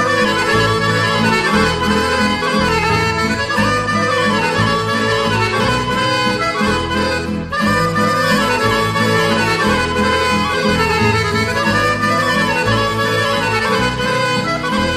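Instrumental break of a Serbian folk song: a melody in held and moving notes over a repeating bass line, with no singing.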